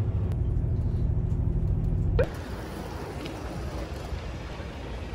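Bus engine rumbling steadily, heard from inside the cabin; it cuts off suddenly about two seconds in, leaving a quieter, even background noise.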